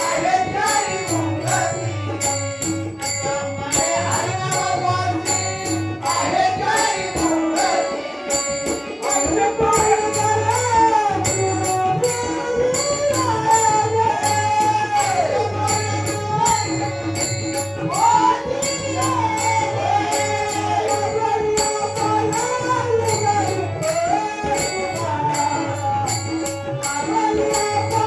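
A male singer sings a Marathi abhang in a melismatic, wavering line over a steady drone, accompanied by tabla strokes and small hand cymbals clinking in a steady rhythm.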